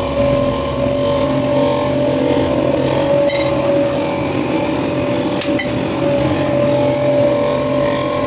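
Cylinder-head resurfacing machine running with a steady mechanical hum, with a light click about five and a half seconds in.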